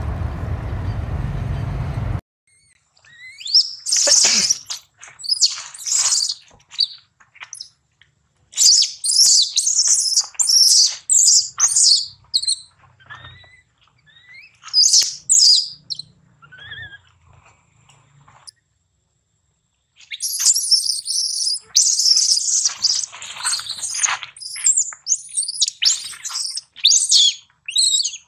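A steady rushing noise that cuts off about two seconds in, then a newborn macaque's high-pitched squeaky cries in quick runs, with a short break after the middle and a dense run near the end.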